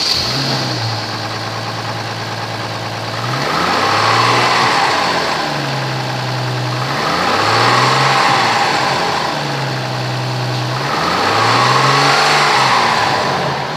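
2004 Chevrolet Trailblazer engine idling steadily, revved three times, each rev rising and falling back to idle over about two seconds.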